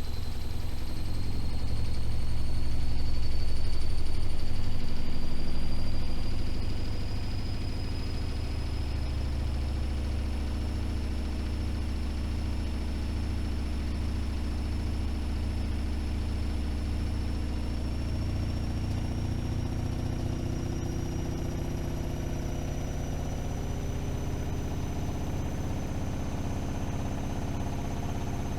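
AEG Öko-Lavamat 76730 washing machine spinning up, its drum accelerating towards a 1600 rpm spin. A motor whine rises slowly and steadily in pitch over a heavy low hum; the hum swells for the first few seconds, then settles to a steady level.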